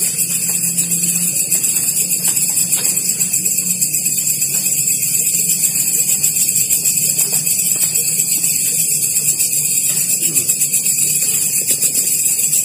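Night insect chorus, crickets trilling in a dense, high-pitched, rapidly pulsing drone, with a faint low hum beneath.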